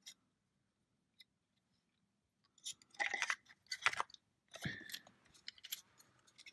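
Small plastic clicks and crackles as the plastic body of a Hornby OO-gauge model locomotive tender is handled and pressed back onto its chassis. The clicks come in a cluster from about two and a half to five seconds in, with a few lighter ones after.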